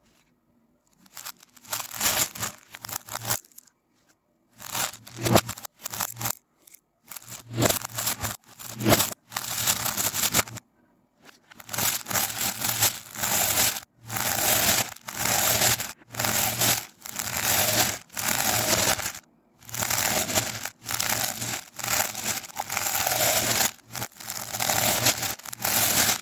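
Slime being squeezed and worked by hand, making crackly, crinkly squishing noises in repeated bursts. The bursts are irregular at first, then come in a steady rhythm of about one a second.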